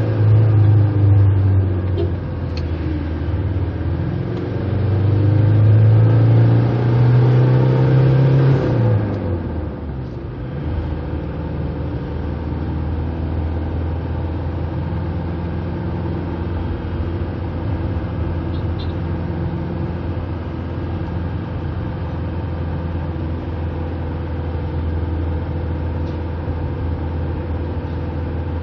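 Car engine heard from inside a moving car, climbing in pitch as it accelerates for several seconds, then dropping off suddenly about nine seconds in and running at a steady cruise with road noise.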